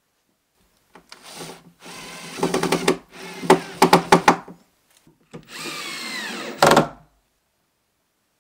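Bosch Professional cordless drill-driver driving screws through a steel hairpin leg's mounting plate into a wooden cabinet, in several short bursts of motor whine with a run of sharp clicks in the middle. Near the end the whine falls in pitch, and a loud knock follows.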